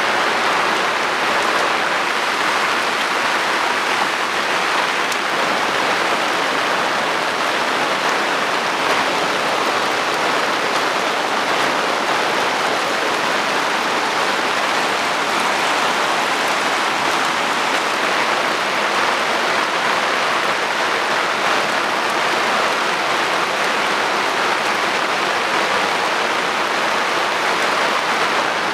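Heavy rain falling steadily, an even unbroken hiss with no letup.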